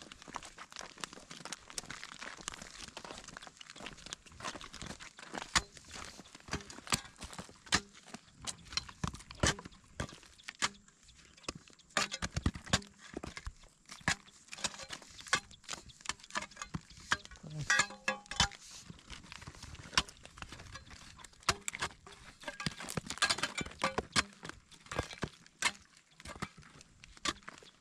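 Flip-flop footsteps crunching over dry, cracked mud, a string of irregular sharp clicks and knocks.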